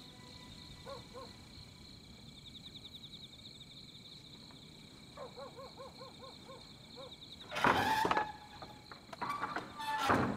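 Faint steady chirring of night insects with a few short repeated chirps. About eight seconds in, a wooden door scrapes and creaks loudly as it is pushed, followed by more creaking and a sharp knock near the end.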